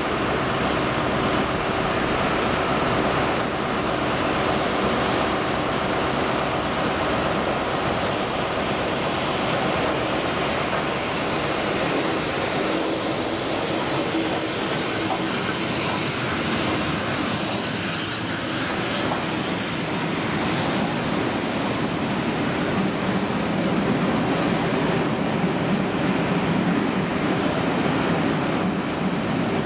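Bulleid Battle of Britain class steam locomotive 34052 passing slowly at close range with its train of coaches, heard as a steady rush of noise. The low rumble of the coach wheels grows stronger near the end.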